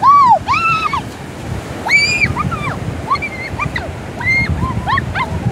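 A girl's wordless, high-pitched vocalising: sing-song cries whose pitch rises and falls, the loudest at the very start and another strong one about two seconds in, followed by shorter ones. Steady surf and wind noise runs beneath.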